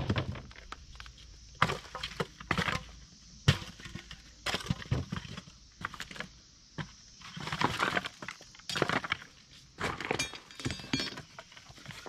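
Scrap plywood and lumber pieces being pulled from a pile on gravel: a string of irregular wooden knocks and clatters, with short stretches of scraping and crunching.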